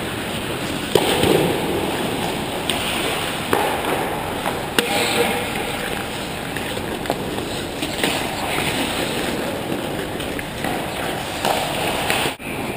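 Ice hockey play close to the goal: skates scraping and carving the ice, with several sharp clacks of sticks and puck, and players' indistinct shouts.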